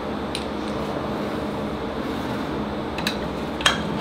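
Steady room hum, with a few sharp metallic clicks, the loudest in the last second, as a PCD diamond tool is fitted onto the concrete grinder's magnetic tool plate.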